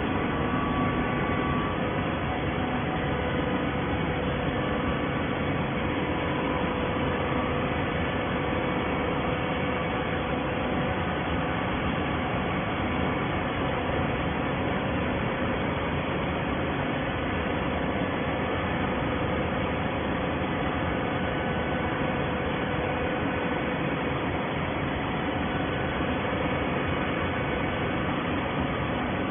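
Baler for scrap cardboard running: an even, steady mechanical noise with a faint hum.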